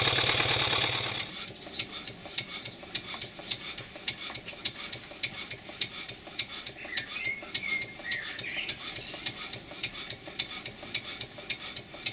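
Stuart James Coombes model table engine running on compressed air: a loud rush of air for about the first second, which then drops away sharply. After that a much quieter, steady rhythm of light metallic clicks from the running engine.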